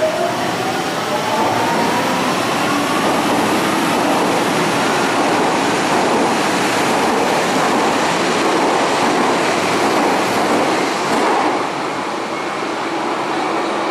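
Yellow Berlin U-Bahn train pulling out of an underground station. A whine rises in pitch over the first couple of seconds as it gets moving, then there is steady loud rail noise as the cars pass, which drops off near the end as the last car clears the platform.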